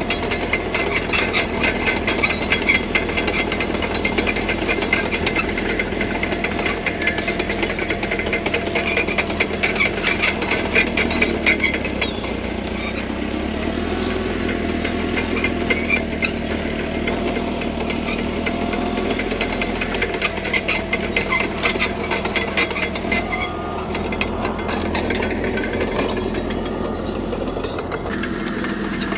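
CAT D3K crawler bulldozer working: its diesel engine runs steadily under a dense, rapid clanking and squealing from the steel tracks, and the engine note shifts about halfway through.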